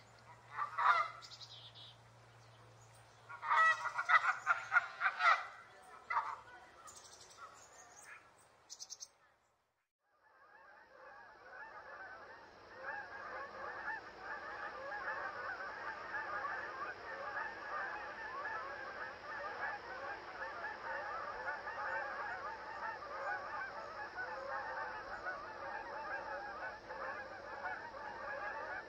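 Canada geese honking: a few separate honks in the first several seconds, a short gap, then from about ten seconds in a dense, continuous chorus of many geese calling over one another.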